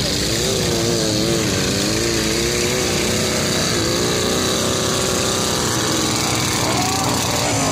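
Small homemade garden tractor's engine working under load through mud, its pitch wavering up and down as the throttle is worked.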